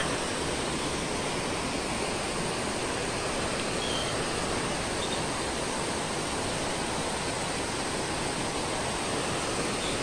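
Steady rushing of a tall waterfall and the rocky river below it, an even wash of falling and flowing water.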